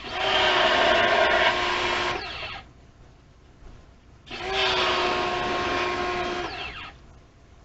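Electric power-tool motor running in bursts of about two seconds. It winds down once, stops for about a second and a half, then starts up again, runs, and winds down again near the end.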